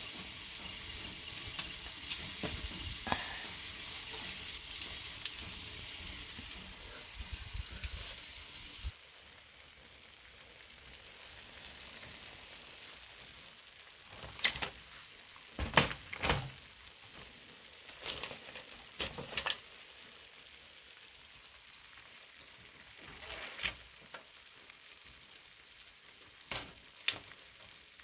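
A baked salmon fillet sizzles on a foil-lined pan in a hot oven, a steady hiss with a thin high steady tone over it. After about nine seconds the sound drops to much quieter, and a fork clicks and scrapes against the fish and foil in several short bursts.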